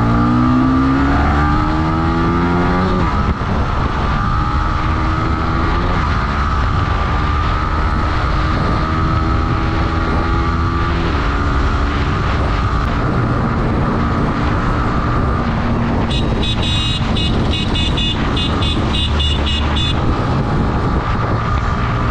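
Yamaha MT-15's 155 cc single-cylinder engine accelerating through the gears. Its pitch rises, drops at upshifts about three and six seconds in, and then settles to a steady cruise. A high pulsing tone sounds for about four seconds near the end.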